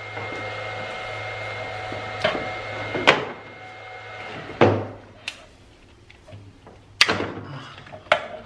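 Sharp plastic clicks and knocks as a golf cart battery charger's plugs and cables are pulled and handled, the loudest about three and seven seconds in. Under them runs a steady electrical hum with a thin high whine that stops about four seconds in, as the charger is disconnected.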